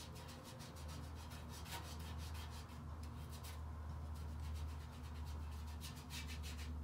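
A paintbrush scrubbing back and forth on paper in quick, scratchy strokes, pausing briefly midway and then going on. A steady low hum comes in about a second in.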